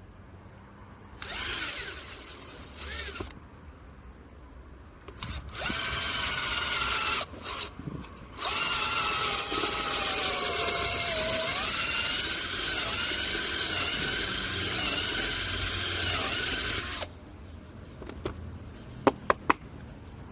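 SHAWTY 20V cordless drill drilling into a softwood board with a twist bit. First come a few short trigger bursts of motor whine, then one long steady run from about eight to seventeen seconds in, its pitch dipping and recovering partway through. A few sharp clicks near the end.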